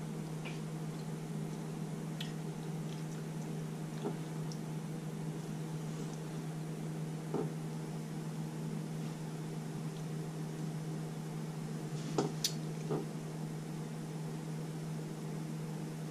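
Soft wet eating sounds, sauce-covered corn and potatoes being chewed, with a few scattered clicks and a short cluster of sharper clicks about twelve seconds in, over a steady low hum.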